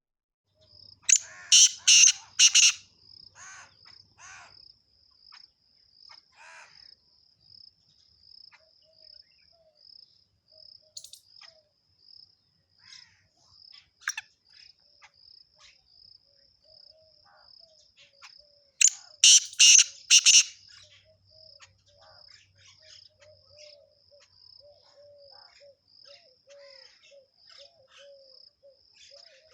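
Bird calling in two loud bunches of three or four cries, over insects chirping in a steady high pulse about twice a second, with softer low chirps in between.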